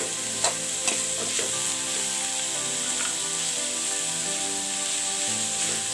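Shredded vegetables sizzling as they stir-fry in a hot aluminium kadai. A metal slotted spatula scrapes and knocks against the pan a few times in the first second and a half.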